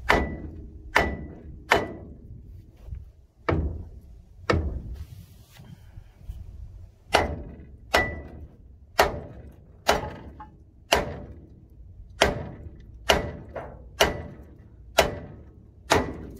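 Hammer blows on the steel front spindle of a Chevy C10, about fifteen sharp knocks at roughly one a second with a short pause partway through. Some knocks ring briefly. They are knocking the ball-joint tapers loose from the spindle.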